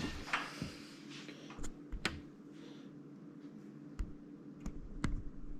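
Handling noise: a handful of light clicks and taps, about six spread unevenly, as the PC case and camera are moved about, over a low steady hum.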